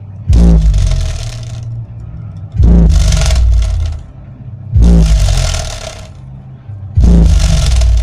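Pioneer 8-inch powered subwoofer playing a deep bass hit with a falling pitch about every two seconds, four times, while a slip of paper held over its bass port flaps and rattles in the air pushed out of the port with each hit.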